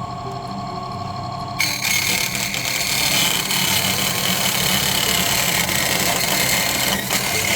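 Lixada 4-inch mini table saw running free with a steady whine, then about a second and a half in its blade starts cutting a sheet of corrugated plastic and the sound turns to a louder cutting noise with a high whine that carries on.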